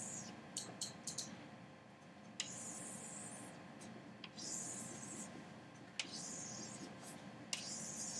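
Chalk drawing long straight lines on a blackboard: about four scratchy strokes of a second or so each, each starting with a tap as the chalk meets the board, with a few short taps in between.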